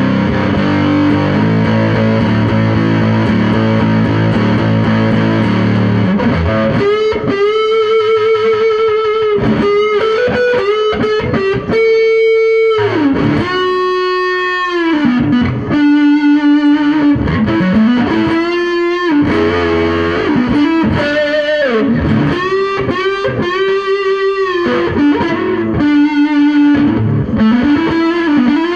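Electric guitar played through a fuzz pedal: a low, thick riff for the first six seconds or so, then a lead line of sustained single notes with bends and vibrato.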